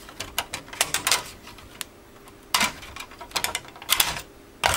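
Irregular sharp clicks and knocks of a thin circuit-board strip being lifted and pulled off the connectors of LED backlight strips on a TV's sheet-metal back panel. The loudest click comes about two and a half seconds in, with a quick run of clicks near the end.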